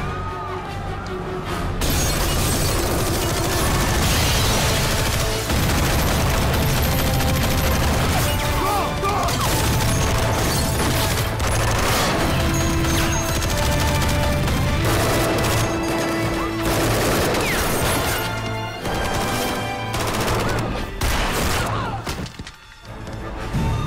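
Film soundtrack of a shootout: sustained automatic gunfire in rapid, dense volleys over an action music score. The firing starts about two seconds in and keeps up almost without a break, easing briefly near the end.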